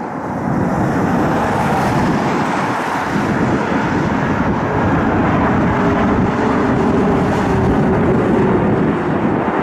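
CRJ regional jet's turbofan engines at takeoff thrust during the departure: a loud, steady rush with a faint tone that falls slightly in pitch in the second half.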